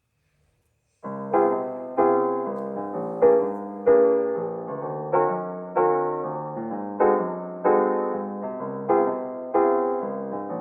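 Background piano music: silence for about a second, then soft chords struck in a steady rhythm, each ringing out before the next.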